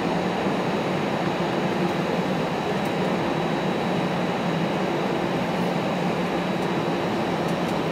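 Steady cabin noise of a jet airliner taxiing after landing: engines at idle and air-conditioning hiss, with a steady low hum and a faint high whine.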